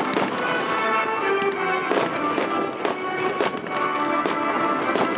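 Aerial fireworks shells bursting, about seven sharp bangs at uneven intervals, with music playing throughout.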